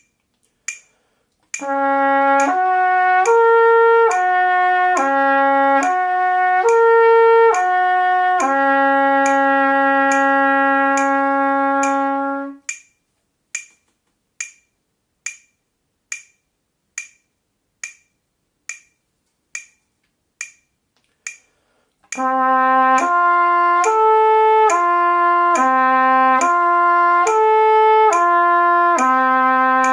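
Trumpet playing a slow lip-slur exercise, slurring between the 2nd, 3rd and 4th harmonics in quarter notes and ending on a long held note, over a metronome clicking at 70 beats a minute. For about ten seconds in the middle only the metronome clicks, then the trumpet starts the next slur pattern.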